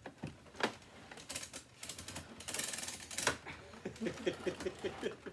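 Hard clicks and knocks from handling a Hoover WindTunnel bagless upright vacuum cleaner, with a short rattle about two and a half seconds in; the motor is not running.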